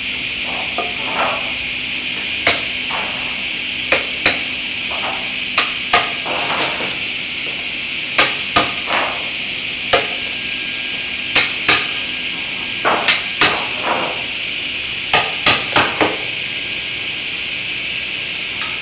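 Hammer tapping on a wooden workpiece: about seventeen sharp strikes in irregular twos and threes, over a steady background hiss.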